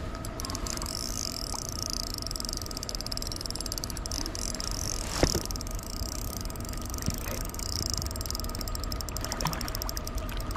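Steady wash of flowing creek water, with a single sharp knock about halfway through and a few faint ticks near the end.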